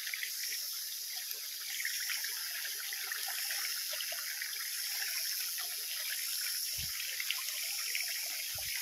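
A small mountain stream trickling over rocks, a steady water sound, with two soft low thumps near the end.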